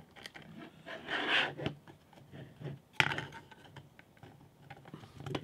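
Quiet handling of a 3D-printed PETG model rocket and its Kevlar cord: faint rubbing and small plastic ticks, with one sharp tap about three seconds in as the rocket is stood upright on the mat.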